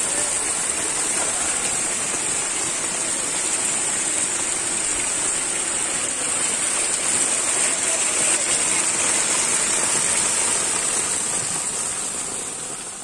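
Water pouring steadily over the concrete lip of a brick culvert outlet and splashing onto the ground below, a constant rush, with a steady high hiss over it; it fades out near the end.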